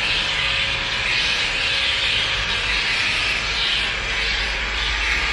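A dense, continuous chatter of many swiftlets filling a swiftlet house, with a low hum underneath.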